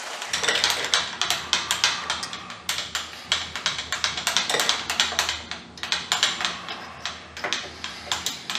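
Quick, irregular clicks and taps of metal parts and tooling being handled at a milling machine, over a faint steady low hum.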